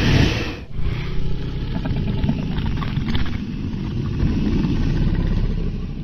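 Dragon sound effect: a deep, continuous rumble, dropping away briefly a little under a second in.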